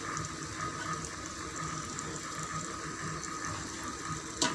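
Spiced onion-tomato masala frying in oil in a pan, a steady sizzle, with a single sharp click near the end.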